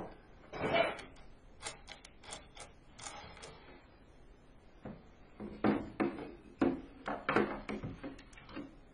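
Handling clatter: a glass jar moved about in a cardboard box and a homemade airgun laid down on a shelf, a run of irregular knocks and clicks. Crisp clinks come about two to three seconds in, heavier knocks in the second half.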